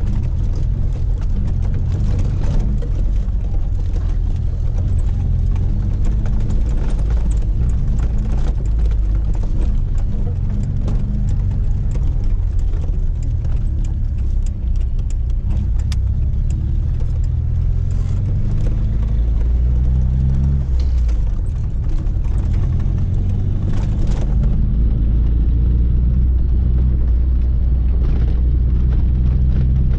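Lada 2106's four-cylinder petrol engine pulling the car along, its pitch rising and dropping with changes of speed and gear. Frequent small knocks and rattles come through over it.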